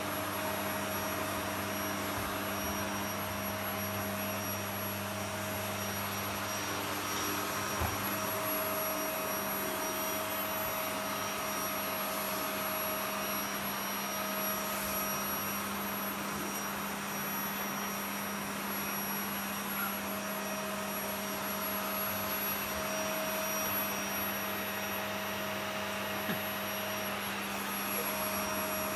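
Vacuum cleaner running steadily, a constant motor whine over the rush of air.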